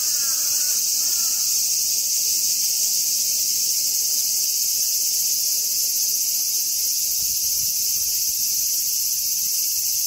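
Cicadas buzzing in a steady, unbroken high drone. A few short chirping calls sound over it in the first second and a half.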